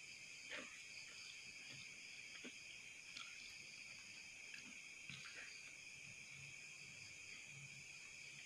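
Near silence with the faint steady chirring of night insects, and a few soft clicks as food is handled and eaten.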